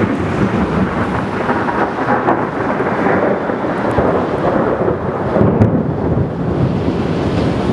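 Loud thunder from a severe thunderstorm, rolling and rumbling on without a break.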